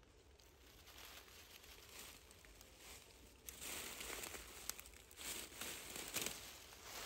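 Dry fallen leaves rustling and crackling as they are stirred, starting about halfway through, with a few sharper crackles.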